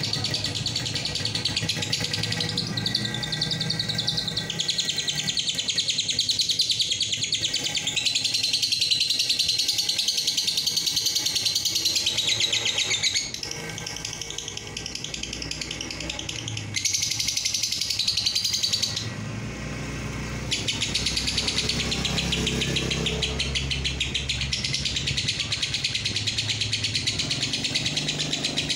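Fischer's lovebird chattering in a long, very rapid trill of repeated high notes (the 'ngekek panjang' that lovebird keepers prize). The trill turns quieter around the middle and breaks off briefly about two-thirds through before resuming.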